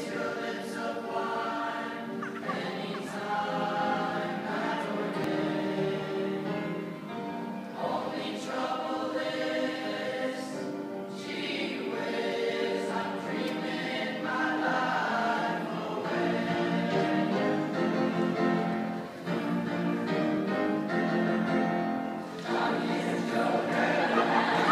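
A choir singing, many voices holding sustained notes together.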